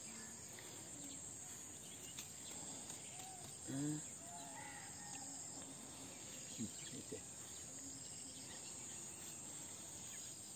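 Steady high-pitched chorus of crickets and other insects in a rice paddy, fairly faint.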